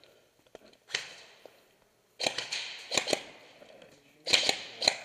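Airsoft guns firing several short bursts of sharp cracks, echoing in a small indoor room.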